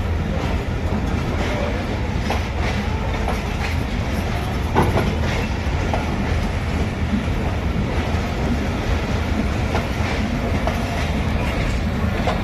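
Pakistan Railways passenger coaches rolling past, steel wheels running on the rails with a steady rumble and scattered clicks, and one sharper clank about five seconds in.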